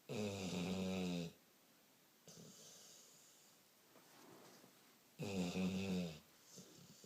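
Loud snoring: two long snores, each about a second, about five seconds apart, with faint breathing between them.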